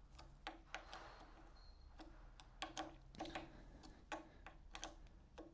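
Faint, irregular metallic clicks of a hand tool working the handlebar stem faceplate bolts as they are fully tightened.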